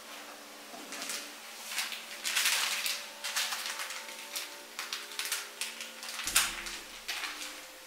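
Small plastic sachet crinkling and rustling in the hands as it is torn open, a run of short crackles with a sharper snap about six seconds in.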